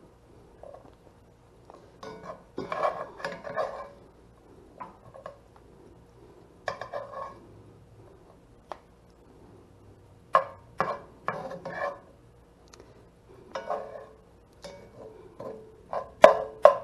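A white plastic spoon scraping and knocking against a cast iron skillet as food is stirred, in irregular bursts with a few sharp taps.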